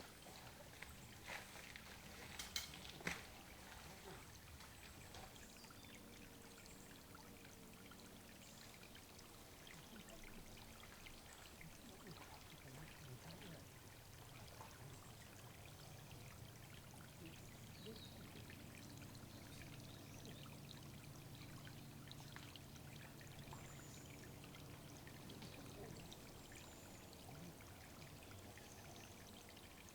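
Faint, steady trickle of water running into a woodland bird watering hole. A few sharp clicks come in the first three seconds, and a few short, faint high bird calls come later.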